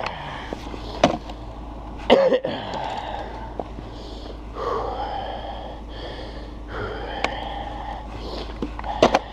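Snow shovel scraping and knocking on the ground in a few sharp strokes, with long, heavy, wheezy breaths of the person shoveling in between.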